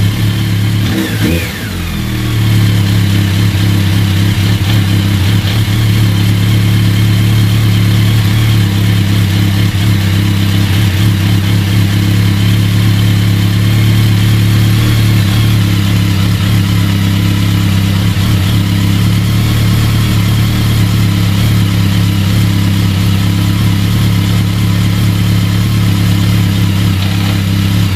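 BMW K1200 GT's inline-four engine running on a workshop lift. About a second in the sound dips briefly and shifts in pitch, then it settles into a steady idle. The bike has a rattle at hot idle, which the mechanic puts down to a worn cush drive in the clutch basket.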